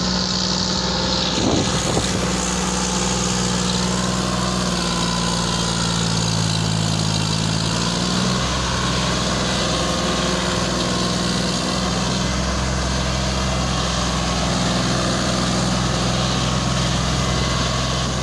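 John Deere 5050 D tractor's three-cylinder diesel engine running hard under heavy load while pulling a fully loaded trolley. The note dips briefly and picks up again about eight seconds in, and a couple of knocks come about two seconds in.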